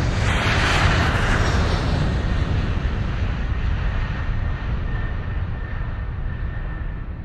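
Aircraft sound effect: a steady low rumble with a rushing swell in the first two seconds that slowly dies away, and a faint high whine from about five seconds in.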